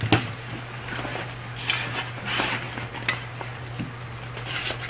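Nylon backpack being opened and handled, with rustling and a few light clicks and knocks as the aluminium avalanche shovel is packed into it, over a steady low hum.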